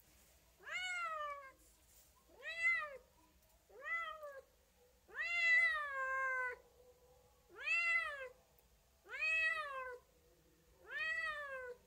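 Domestic cat meowing seven times in a row, each meow rising then falling in pitch; the fourth meow is the longest.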